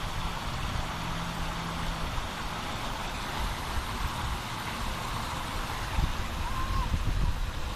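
Waterfall running: a steady rush of falling and splashing water. Wind rumbles on the microphone underneath it, with gusts growing stronger near the end.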